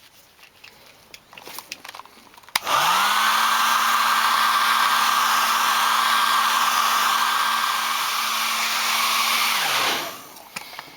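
Handheld heat gun switched on about two and a half seconds in, its fan motor spinning up to a steady blowing hum, running for about seven seconds and winding down as it is switched off; it is warming the freshly applied leather filler to help it set. A few light handling clicks come before it.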